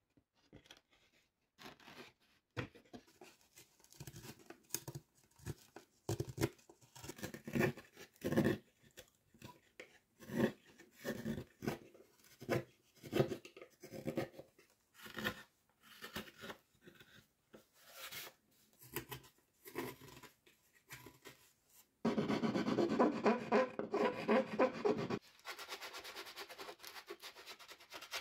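A hand tool scraping and rasping on wood in irregular separate strokes, then a louder, denser stretch of continuous rubbing near the end.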